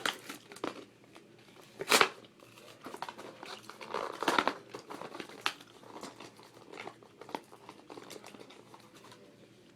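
Plastic packaging crinkling and Nerf blaster parts being handled, with scattered clicks, a sharp knock about two seconds in and a longer rustle about four seconds in.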